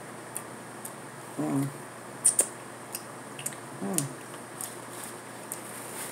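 Close-up eating sounds: small wet lip smacks and mouth clicks while chewing, with two sharp smacks just after two seconds the loudest. Two short closed-mouth "mm" hums, about a second and a half in and again around four seconds.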